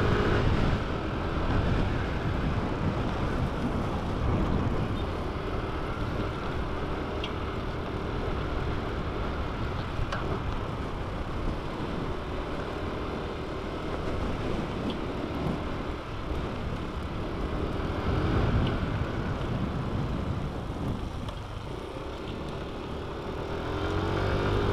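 Motorcycle engine running steadily on the move, with wind noise over the microphone.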